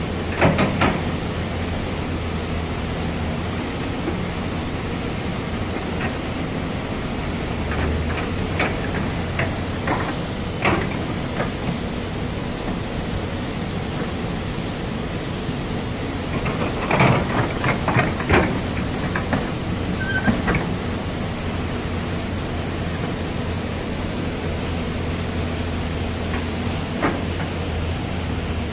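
Diesel excavator engine running steadily under work, with scattered metallic clanks and knocks from the machine, thickest in a short burst about two-thirds of the way through.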